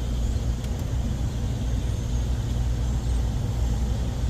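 Air-conditioning unit running with a steady low hum.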